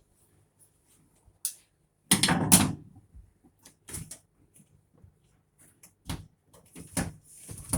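Hands working on a washing machine's door-lock switch, making a series of sharp knocks and clicks. The loudest is a short rattling clatter about two seconds in, followed by single clicks every second or two.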